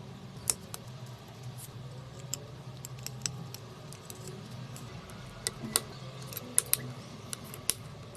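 Irregular light clicks and taps of small hard parts being handled, over a low steady hum; the clicks come thicker in the second half.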